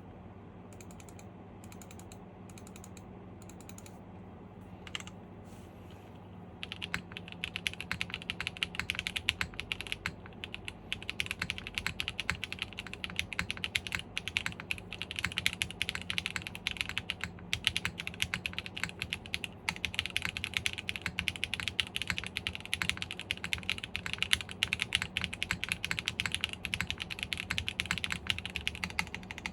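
Typing on a mechanical keyboard: an Aiglatson Constance TKL with stock Kailh BCP switches in a top-mounted aluminum plate, fitted with GMK keycaps. A single key click comes about five seconds in, and fast continuous typing starts at about seven seconds and goes on without a break.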